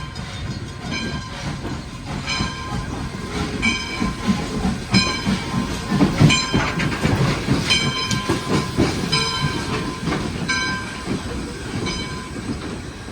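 1907 Baldwin 0-6-0 steam switcher locomotive on the move, its bell ringing steadily about every 0.7 seconds over the rumble of the engine and wheels. The rumble grows loudest about halfway through, then eases as the engine passes.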